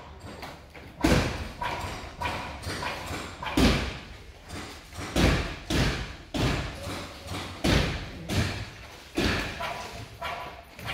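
Footsteps thudding and crunching over debris strewn across a concrete floor, a regular walking pace of about one step a second.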